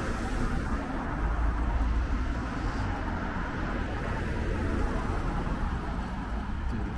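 Road traffic on a town street, cars and a van driving by, with a low wind rumble on the microphone.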